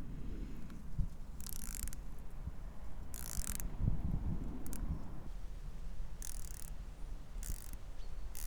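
3 mm Allen key tightening the clamp bolts of a bike light's handlebar mount, with a few short, sharp metallic scrapes spread through, as the key turns and is set back into the bolt heads, over low handling bumps.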